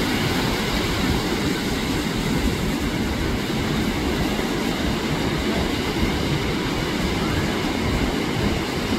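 Ocean surf breaking and washing in, a steady, unbroken rush with a heavy low rumble.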